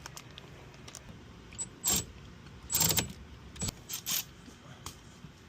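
Small metal objects, such as tools or hardware, clinking and jingling against each other in a few short bursts with a bright metallic ring. The loudest clinks come about two and three seconds in.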